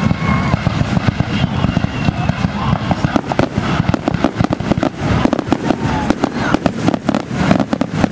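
Fireworks finale: aerial shells bursting in a dense, continuous barrage, many bangs in quick succession over a low rumble.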